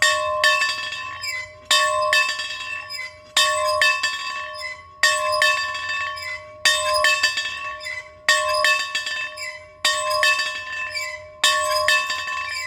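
A bell rung steadily, about eight strong strokes a second and a half or so apart. Each stroke rings on and fades before the next, with lighter clinks in between.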